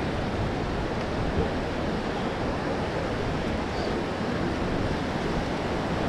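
Ocean surf washing on a beach: a steady, even rush of noise.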